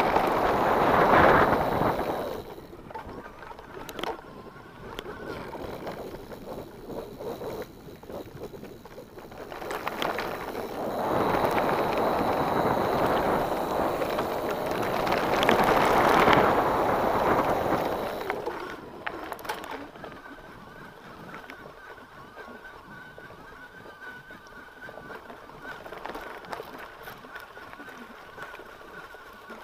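Wind rushing over the camera microphone as a mountain bike rolls fast down a dirt forest track, with rattles and knocks from the bike over bumps. The rush is loudest about a second in and again from about ten to eighteen seconds in, then drops to quieter rolling.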